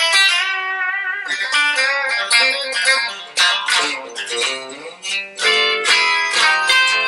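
Fender Stratocaster (limited-edition 1956 roasted-ash model) played on its bridge pickup: a lead phrase of plucked single notes with bent, wavering notes, bright and twangy.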